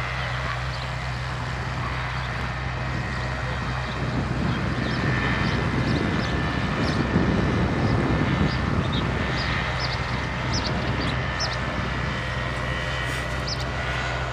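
Ultralight trike's engine and propeller droning in flight overhead. It grows louder through the middle as the trike passes close, then eases off as it moves away.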